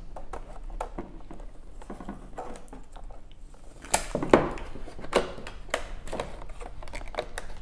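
Clear plastic packaging sleeve on a cardboard box being handled and pried at, giving a run of crinkles, taps and clicks. The loudest sharp snaps come about four seconds in.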